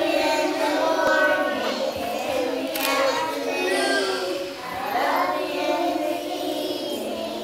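Group of young children singing an action song together.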